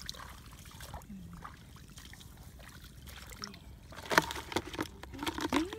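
Quiet sloshing and dribbling of shallow muddy water as hands grope in it, then a cluster of sharp splashes and knocks about four seconds in as the hands go into a plastic bucket.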